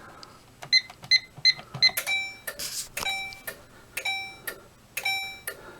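Fire alarm notification horns sounding March code, an on-off temporal pattern of about one blast a second, as the panel runs a fire drill. They start about two seconds in, just after four short electronic beeps.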